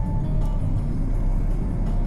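Steady low rumble of street traffic, with music playing over it.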